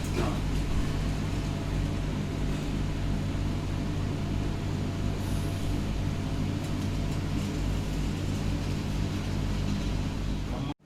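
Steady low hum with an even hiss, like machinery running, with no speech; it cuts off suddenly near the end.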